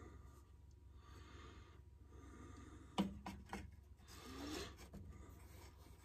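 Air filter cover being fitted onto a McCulloch Mac 10-10 chainsaw by hand: a sharp click about three seconds in, two lighter knocks just after, then a brief rubbing squeak as the cover is pressed into place, over a faint low hum.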